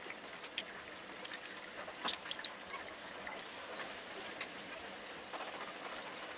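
Hot oil sizzling steadily around an egg batter fritter deep-frying in a karahi over low-to-medium heat, with scattered small crackles and a few sharper clicks about two seconds in.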